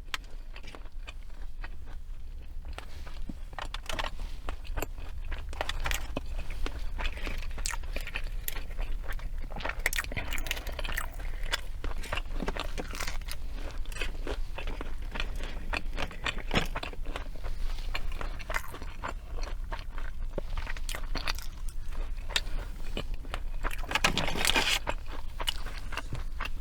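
A person chewing and crunching fast food close to the microphone, with many irregular crisp crunches and wet mouth clicks. A louder burst of sound comes near the end.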